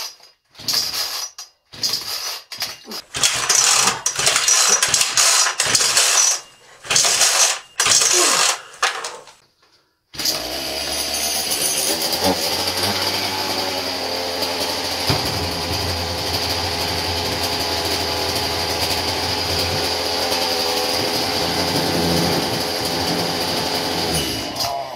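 Loud, irregular bursts of noise, then about ten seconds in a chainsaw engine starts and runs steadily at an even speed without revving, stopping suddenly just before the end.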